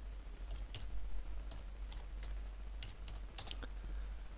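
Computer keyboard being typed on, a run of short, irregular key clicks, over a steady low hum.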